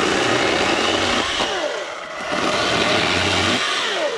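Greenworks Digipro 16-inch 40V brushless battery chainsaw running in two bursts as it cuts dead branches. The motor's whine drops in pitch as it winds down about a second and a half in, then again near the end.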